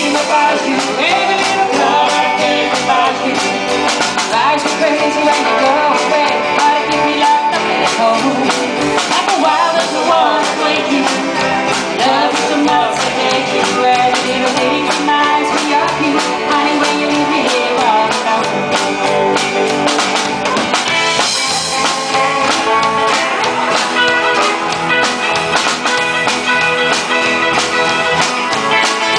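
Live country-rock band playing: electric guitars and a drum kit, steady and loud throughout.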